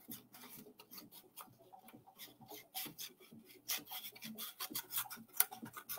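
Scissors cutting a folded sheet of colored paper down its crease, heard as a faint, irregular run of short crisp clicks and scrapes.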